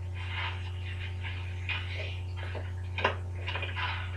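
Steady low electrical hum under faint, indistinct television sound, with one sharp click about three seconds in.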